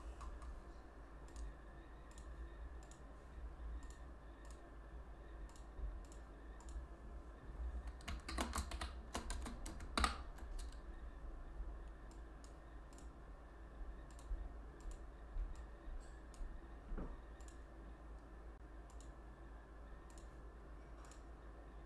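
Computer keyboard keystrokes and clicks, scattered and fairly faint, with a quick cluster about eight to ten seconds in, over a low steady hum.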